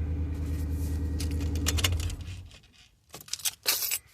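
A vehicle's engine idling with a steady low hum, then switched off about two seconds in and running down. Keys jingle and click in the ignition, as if being pulled out, near the end.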